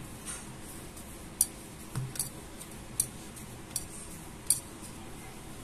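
Stiff puri dough being kneaded by hand against a stone counter, with short, sharp clicks about every three-quarters of a second and a soft thump about two seconds in.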